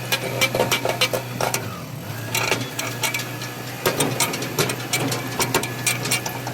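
Compact excavator engine running at a steady note, with many irregular sharp clicks and metallic knocks from the machine's work.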